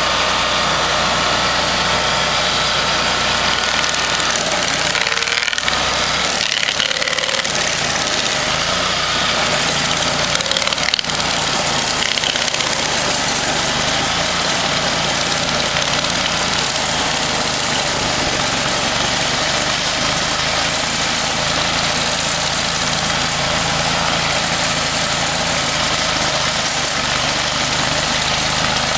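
Stump grinder's engine running steadily at a constant speed, with a broad noisy hiss over the engine note. The engine note shifts briefly about five seconds in and again around eleven seconds, then settles.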